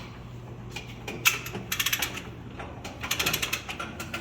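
Ratchet on the tensioning rig clicking in quick runs of several clicks, about two seconds in and again about three seconds in, as its tension is backed off.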